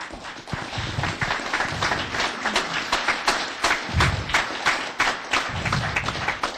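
Audience applause: many people clapping together.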